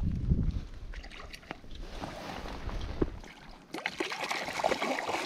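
Water splashing and sloshing close by in irregular bursts. A low wind rumble on the microphone runs for the first three seconds and then stops abruptly.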